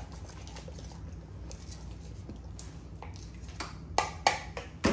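Metal spoon clinking and knocking against a glass measuring cup of yogurt and peanut butter mix: a few sharp clinks in the last second or so, over a faint steady hum.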